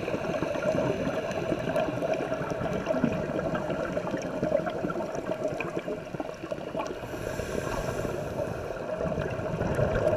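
Underwater sound during a scuba dive: steady gurgling, bubbling water noise with many faint scattered clicks, and a light hiss for a second or so past the middle.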